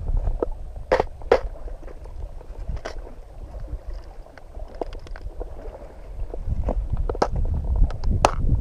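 Low rumbling on the microphone with about a dozen sharp clicks and knocks scattered irregularly. The loudest come about a second in and near the end.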